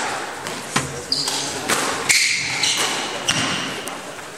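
Court shoes squeaking and thudding on a hardwood squash court floor: several short high squeals mixed with footfall thumps.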